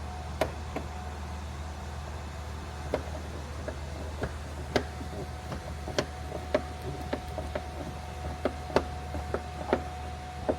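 About fifteen light, sharp clicks and knocks at irregular intervals over a steady low hum and a faint steady whine.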